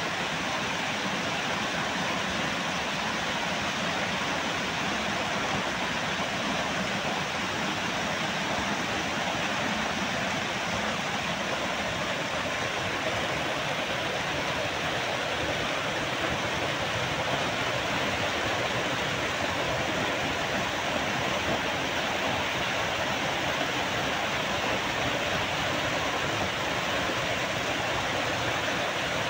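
A waterfall: a curtain of water pouring over a rock ledge and splashing into a foaming pool, a steady, even rushing with no change in level.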